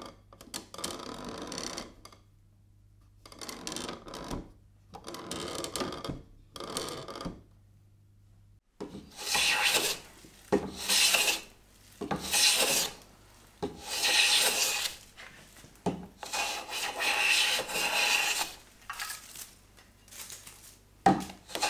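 Hand plane taking long strokes along a wooden board on a workbench: a run of hissing, scraping strokes, roughly one every second and a half, from about nine seconds in. Before that come a few quieter bursts of handling noise over a low hum.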